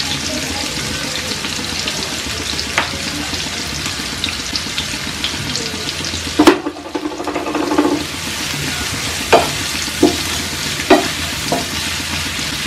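Chopped onions, curry leaves and ginger-garlic paste frying in oil in a nonstick pan: a steady sizzle, with a few sharp clicks, most of them in the second half.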